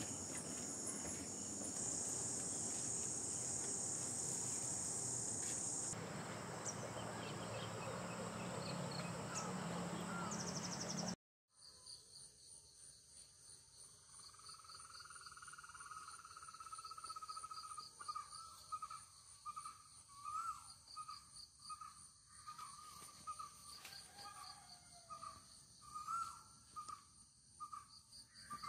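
Crickets chirring steadily. After a sudden break they give way to pulsing insect song and a bird calling with a string of short, repeated whistled notes.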